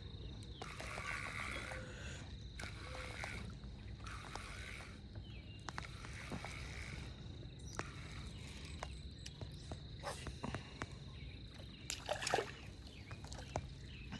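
Faint lakeside ambience with scattered small clicks from a spinning reel being worked, then, about twelve seconds in, a short burst of splashing as a hooked bass is pulled up out of the water.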